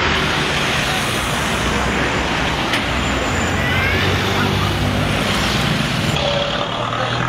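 Street traffic: cars, a pickup taxi and motorcycles driving past, their engines and tyres making a steady loud rumble.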